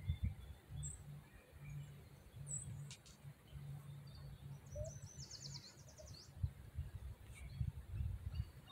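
Faint birdsong: a few short high chirps and, about halfway through, a quick trill of about ten high notes, over a steady low rumble on the microphone.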